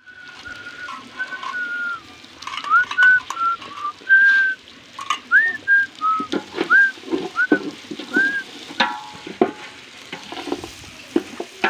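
A woman whistling a tune, a string of short notes that slide up and down, over the sizzle of meat and onions frying in a pot on a wood fire.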